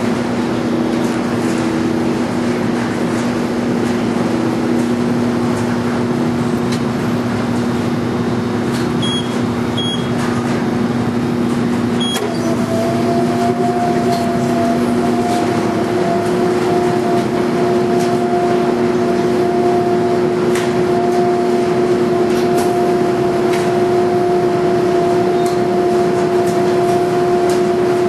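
Speed Queen 125 lb washer-extractor running its wash cycle, the drum tumbling a load of heavy mats over a steady motor hum. About twelve seconds in, the hum changes to a higher pitch, just after a few short high beeps.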